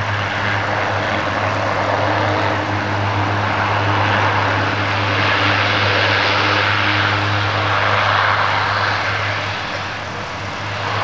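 Four-engine turboprop military transport, a C-130 Hercules, taxiing along the runway: a steady propeller drone with a strong low hum and a rushing hiss above it, easing off slightly near the end.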